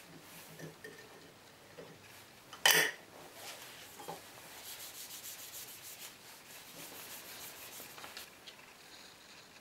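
A rag rubbing linseed oil into an antique wooden plough plane: quick, repeated strokes of cloth on wood. About three seconds in comes a single sharp glassy clink as the swing-top glass jar of oil is closed.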